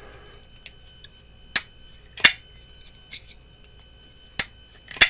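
Carbon-fiber Urban EDC F5.5 folding knife being flipped open and shut on its detent: two pairs of sharp metallic clicks, the clicks in each pair about two-thirds of a second apart, with a couple of faint ticks between.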